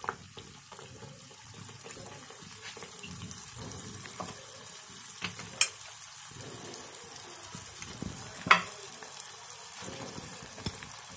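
Ariselu dough disc of rice flour and jaggery deep-frying in hot oil and ghee: a steady sizzle of bubbling oil. Two sharp clicks stand out, about halfway through and about three-quarters through.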